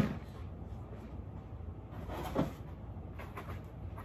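Handling noise as plastic animatronic prop parts are lifted out of a cardboard box: a sharp knock at the start, a duller thud about two seconds in, and a few light clicks near the end, over a faint low hum.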